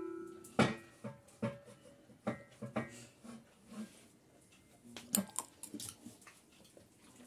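Scattered light clicks and knocks of a metal fork against a plastic tub of grated carrot as it is stirred and handled, with a sharper cluster of knocks about five seconds in.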